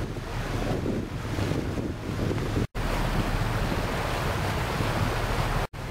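Wind buffeting the camera microphone, a steady low rumble over the wash of choppy harbour water. The sound drops out completely for an instant twice, a little under three seconds in and near the end.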